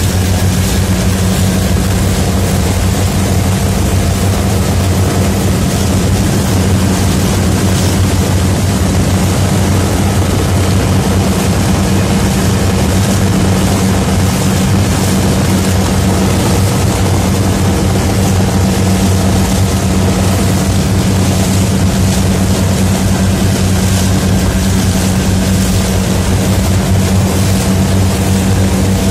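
Speedboat outboard motor running steadily at high speed, a constant low drone under the rush of water and wind from the boat planing.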